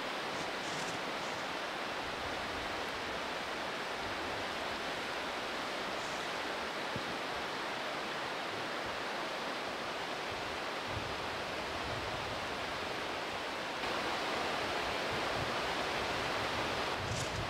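Oulankoski rapids on the Oulanka River: a steady rush of white water, growing a little louder about fourteen seconds in.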